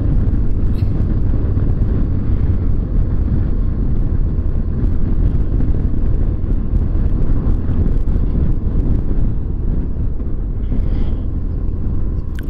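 A BMW R1200GS motorcycle's flat-twin engine runs at road speed, mixed with wind rushing past the bike-mounted camera, as a steady low rumble.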